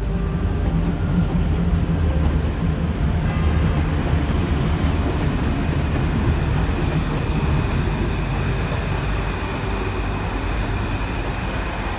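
Paris Métro train crossing the elevated steel viaduct overhead, a heavy steady rumble. A high, steady wheel squeal rings out from about a second in and fades around seven seconds in.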